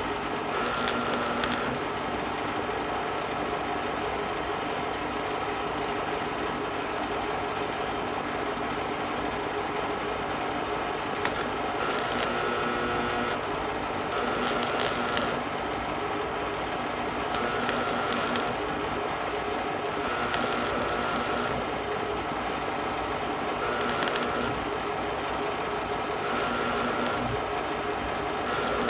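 Stick-welding arc from a Miller Thunderbolt 250 AC buzz box on thin plate, struck and broken again every few seconds: short bursts of crackling hiss about a second long, about eight in all. A steady hum runs underneath.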